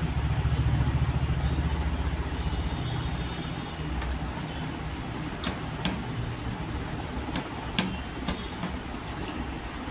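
A low background rumble that swells for the first few seconds and then settles, with a few soft clicks and smacks from fingers mixing rice and curry on a plate and from chewing.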